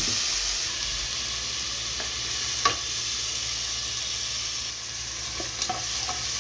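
Garlic paste sizzling in hot oil with fried onions in an aluminium pressure cooker as a plastic spatula stirs it, with a steady hiss. The spatula knocks against the pot about two and a half seconds in and a few more times near the end.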